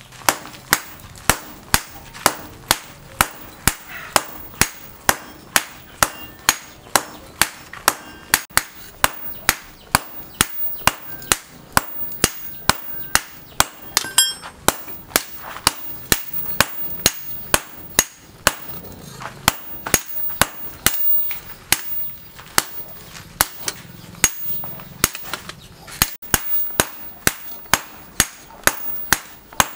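Hammer blows forging a red-hot steel billhook blade on a steel anvil: a steady run of sharp, ringing strikes, a little over two a second, with a couple of brief pauses.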